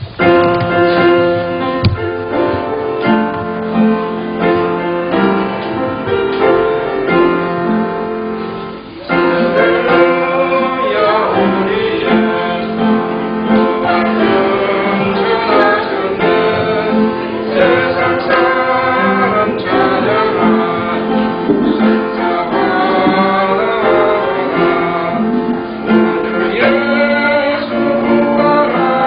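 Church praise song: voices singing a hymn with keyboard accompaniment, swelling louder about nine seconds in.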